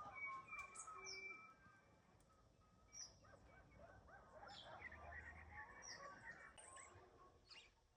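Several birds calling together, faint: short high whistles that slide downward, held whistled notes, and a stretch of busy warbling chirps in the middle.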